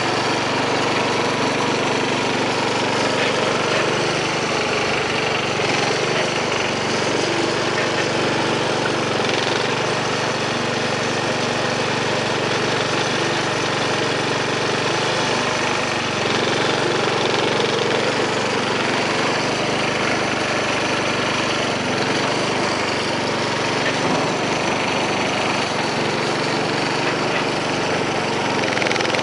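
Engine of a 1970 Sears Suburban 12 garden tractor running steadily while the tractor drives and works its front loader in wet snow.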